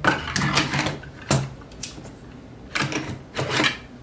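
Sharp plastic clicks and knocks as a Byrna SD pepperball launcher is drawn out of a 3D-printed under-desk holster and handled, a cluster near the start and another about three seconds in.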